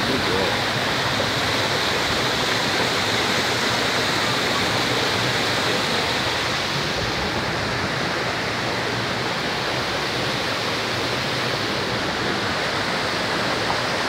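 Steady rush of water cascading over rock from a waterfall and its rocky stream.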